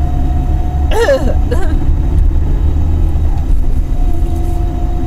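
Car driving on a country road, heard from inside the cabin: a steady low rumble of engine and tyres, with a faint steady hum above it.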